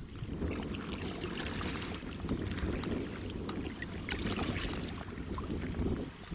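Kayak paddling on open water: the paddle splashing and dripping in many small irregular splashes, over a low rumble of wind on the microphone.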